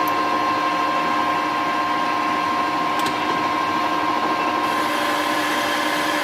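Metal lathe running steadily, its motor and gearing giving an even whine, with a faint tick about three seconds in.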